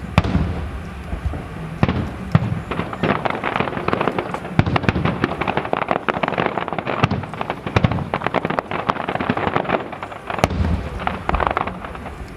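Aerial fireworks going off in rapid succession: deep booms of shells bursting mixed with dense crackling, many sharp bangs a second, thickest through the middle and easing off near the end.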